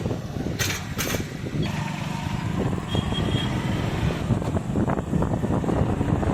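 Road vehicle engines running steadily under a noisy haze, with a few brief clicks in the first second and a short high tone about three seconds in.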